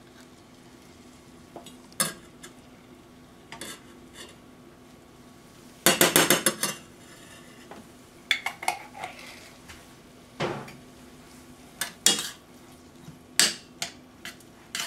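Metal spoon clinking against a glass jar of minced garlic and a stainless steel skillet as the garlic is scooped out and stirred into melted butter and bacon bits. Scattered single clinks, with a quick run of taps about six seconds in.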